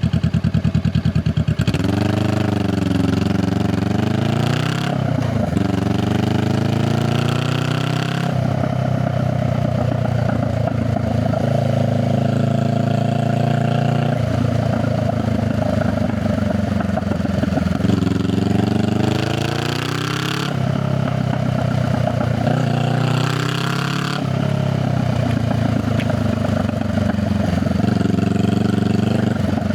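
Honda Rebel 500's parallel-twin engine and exhaust while riding. It holds a low, pulsing beat for the first two seconds, then accelerates with the revs climbing and dropping between gear changes, settles into steady running, and climbs twice more in the second half.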